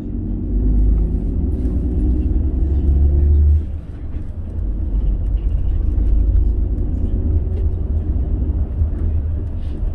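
A car driving on the road: a steady low rumble of tyres and engine, dipping briefly about four seconds in.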